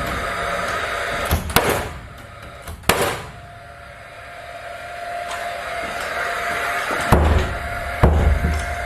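Paslode XP cordless gas-powered framing nailer firing nails into wood framing: about five sharp shots at uneven spacing, two close together early, one a second later, then a pause before two more near the end.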